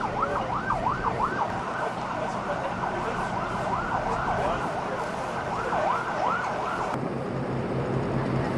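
Emergency vehicle siren on a fast yelp, its pitch sweeping up and down about four times a second in bursts over a steady wash of background noise. About seven seconds in it cuts off and a steady low engine hum takes over.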